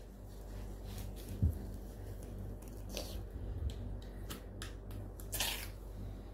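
Soft handling noises as glittery slime is pushed out of a plastic tube: a few faint clicks, a light knock about one and a half seconds in, and a short squishy rustle a little after five seconds.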